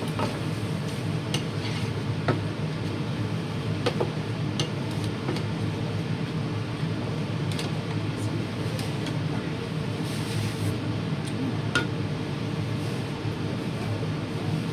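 Metal slotted spatula stirring goat meat chunks in a large pan, scraping and giving a few sharp clinks against the pan, over a steady low hum.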